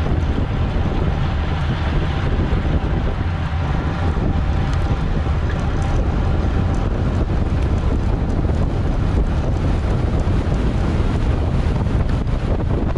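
Steady wind noise on the microphone of a camera riding along on a racing bicycle at speed, heaviest in the low end.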